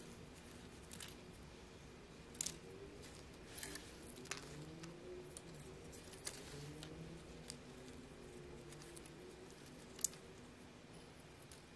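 Sparse, faint metallic clicks and taps of watchmaking tools on small parts of a Valjoux 7750 movement, the sharpest click coming near the end.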